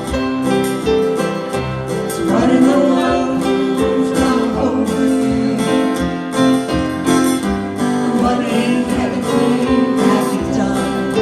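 Acoustic string band playing a country-folk song live, with guitar strumming and singing.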